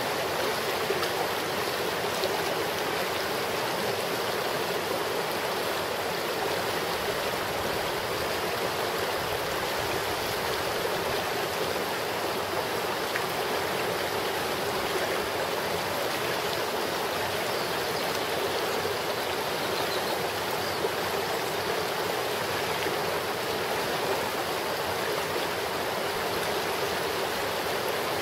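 Creek water flowing steadily over rocks, an even rushing that does not change.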